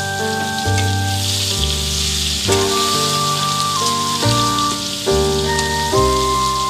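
Background music, a chord-and-bass tune changing about once a second, over a steady sizzle of chopped onions frying in hot oil in a steel kadhai while they are stirred.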